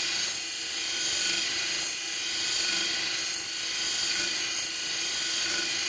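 Benchtop sharpening machine running at low speed, its diamond wheel grinding a tooth of a steel wood handsaw: a steady high hiss over the motor's hum.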